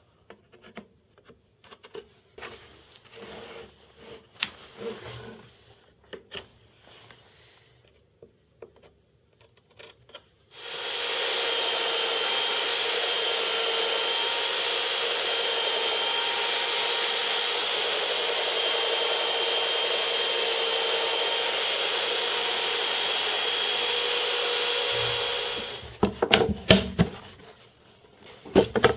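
Belt sander clamped in a wooden holder, switched on about ten seconds in, running steadily with a constant high whine for about fifteen seconds, then switched off. Before and after it, scattered light knocks and clatter from a Perspex plate being handled.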